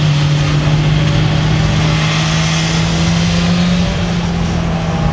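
Two sport motorcycles running hard on a race track, their engines held at high revs, the pitch dipping slightly near the end as they pull away.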